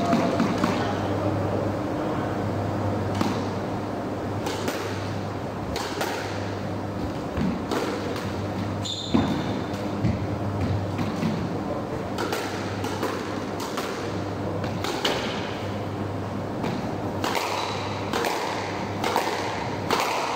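Squash ball struck with rackets and hitting the court walls and floor: sharp, irregular hits every second or two, over a steady low hum.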